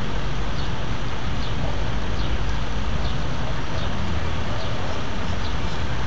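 Steady city traffic noise, a constant low rumble with hiss, with faint high chirps recurring about once a second.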